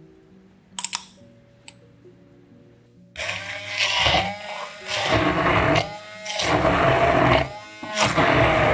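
Hand-held immersion blender running in a tall beaker of chopped basil, garlic and oil, blending it into a sauce. It switches on about three seconds in and is pulsed, dropping out briefly and spinning back up three times. Before it come a few sharp clicks over faint background music.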